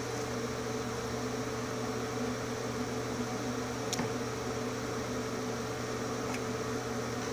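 A steady mechanical hum over a hiss, as from a running fan or household appliance, with one faint click about four seconds in.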